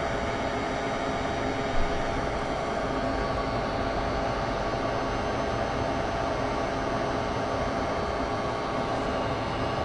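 Heat gun running steadily: a blowing rush with a steady fan whine over it, as it heats solder paste to reflow on a small circuit board. One short louder sound about two seconds in.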